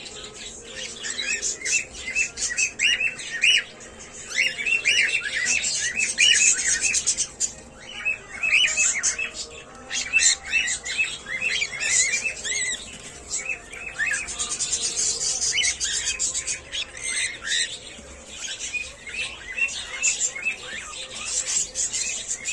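Cockatiels chirping and chattering continuously: many short, rapid, overlapping chirps with occasional sharper, higher calls.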